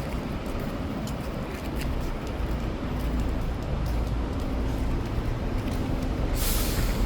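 Road traffic: a heavy vehicle's engine rumbling steadily, with a short sharp hiss near the end.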